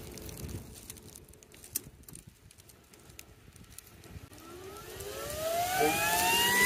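Portable 4,500 psi high-pressure air compressor switched on: its motor spins up with a rising whine that starts about four seconds in and grows steadily louder.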